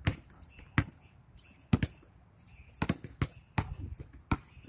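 A basketball bouncing on a hard outdoor court: about eight sharp, irregularly spaced thuds, two of them close together near the middle.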